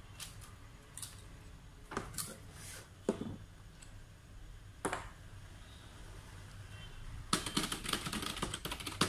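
A few separate knocks and clicks, then fast, steady typing on an HP Multimedia wireless keyboard from about seven seconds in.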